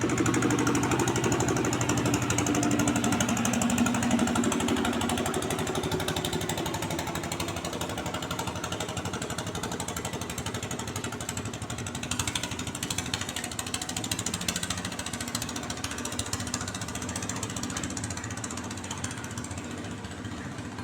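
Small boat engine running close by with a fast, knocking beat; its pitch shifts over the first few seconds, then it runs steadily and a little quieter.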